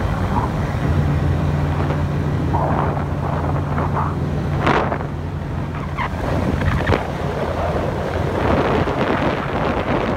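Motorboat engine running steadily at high cruising speed, a low hum under the rush of wind on the microphone and water along the hull, with a few brief gusts or knocks.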